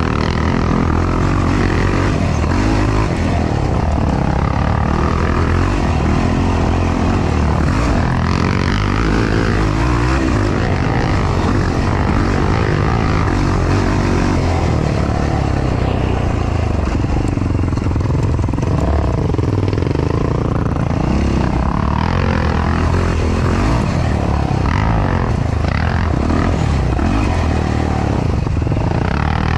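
Yamaha YFZ450R quad's single-cylinder four-stroke engine running loud and steady under load on a dirt trail, heard on board the quad.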